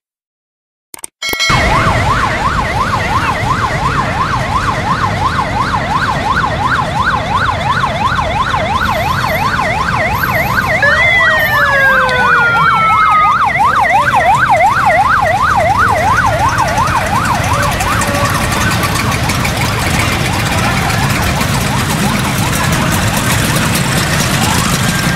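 Police motorcycle siren warbling quickly, about three up-and-down sweeps a second, over the running engines of a convoy of Vespa scooters. Midway a second siren wails downward briefly, and after about two-thirds the warble fades out, leaving the scooter engines.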